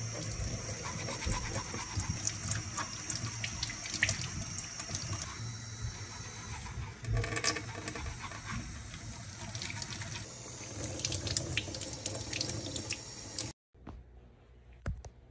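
Kitchen faucet running into a stainless steel sink while makeup brushes are rinsed under the stream, with scattered small clicks and taps. The water sound cuts off suddenly near the end, leaving a much quieter stretch with a single click.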